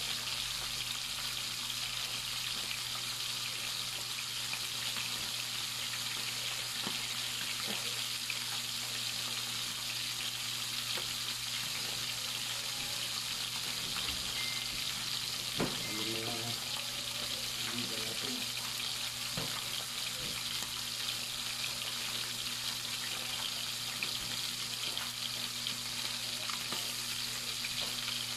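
Salmon head pieces frying in hot oil in a pan, a steady sizzle.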